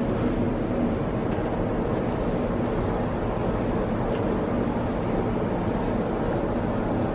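Steady, unchanging low mechanical hum with a constant rush of noise.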